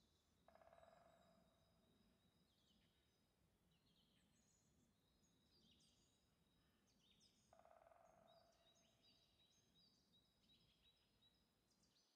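Near silence in the woods, with faint, scattered chirps and calls of small birds. Two louder, lower calls of about a second each stand out, about half a second in and about seven and a half seconds in.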